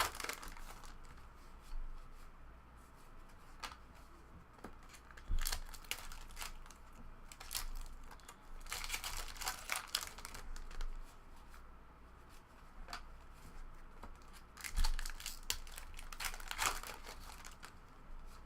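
Trading card pack wrappers being torn open and crinkled, with cards handled, in several irregular bursts with quieter stretches between.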